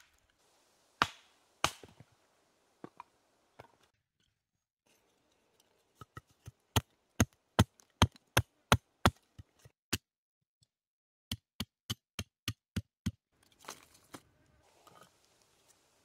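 Small axe chopping and splitting wood for kindling. Two single blows come first, then two quick runs of even blows at about three a second with a short pause between them. Near the end there is a soft rustling of sticks.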